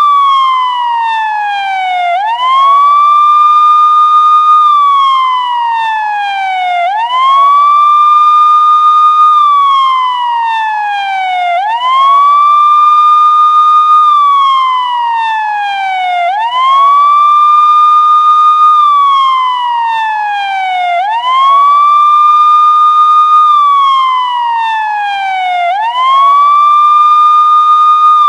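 Police car siren sounding a continuous wail. Each cycle rises quickly in pitch, holds at the top for about two seconds, then slides slowly back down, repeating about every four to five seconds.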